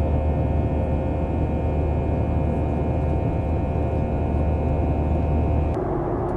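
Airliner cabin noise during the climb after takeoff: the jet engines give a steady hum of several held tones over a deep rumble. Near the end it cuts abruptly to a different steady cabin noise with a single mid-pitched tone.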